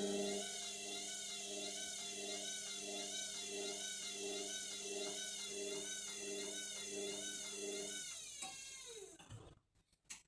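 Indesit washing machine motor whining, its pitch wavering evenly about one and a half times a second as the unbalanced drum turns. About 8 seconds in, the whine falls in pitch and dies away as the drum slows and stops: the machine is failing to spin up with an unbalanced load.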